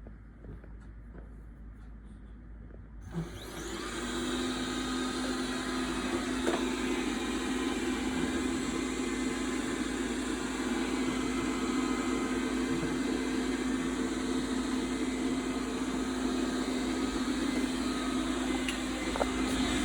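Dreame D9+ robot vacuum's suction fan and brushes starting up about three seconds in, then running with a steady hum and a constant low tone, as the robot works in spot-cleaning mode.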